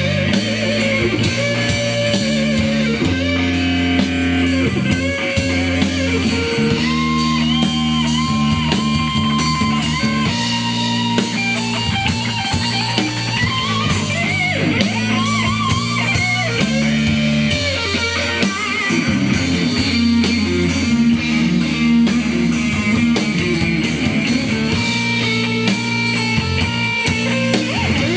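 Live rock band playing: electric guitar over bass guitar and a drum kit, with held, bending notes in the higher lead line.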